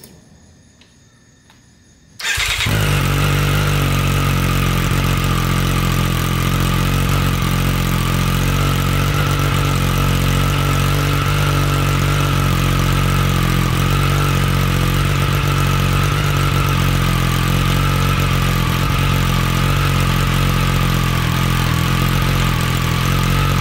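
2022 Triumph Street Triple R's 765 cc inline three-cylinder engine, breathing through a freshly fitted Yoshimura AT2 exhaust, starts about two seconds in and settles straight into a loud, steady idle.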